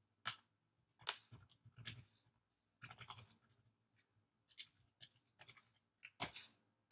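Computer keyboard being typed on: short, irregular clusters of faint key clicks.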